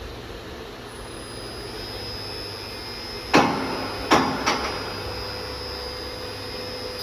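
CNC machine with automatic labelling running: a steady mechanical hum with a high steady whine, broken about halfway through by three sharp clacks in quick succession, and a lighter click near the end.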